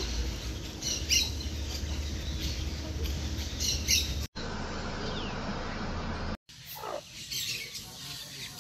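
Short high bird chirps over a low steady rumble, then, after two abrupt cuts, a hen clucking with her chicks peeping.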